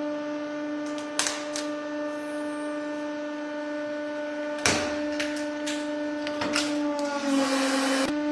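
Hydraulic press pump whining steadily while a corn cob is crushed: sharp cracks about a second in and near the five-second mark, then smaller snaps. Near the end a second of crunching, during which the whine sags lower under load, stops abruptly.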